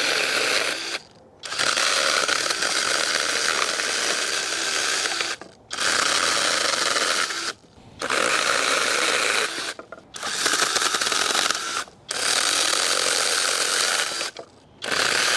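21V battery-powered 6-inch mini chainsaw running in repeated bursts of one to four seconds, its trigger released briefly between them, as the chain cuts through small branches.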